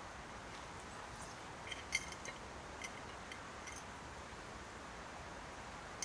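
Faint clicks and light clinks as hands and soil crumbs knock against a large glass jar, loudest about two seconds in, over a steady soft hiss.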